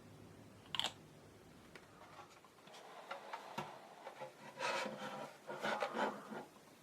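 Plastic model kit parts being rubbed down by hand. There is one short sharp scrape about a second in, then a run of rasping strokes, loudest in the second half.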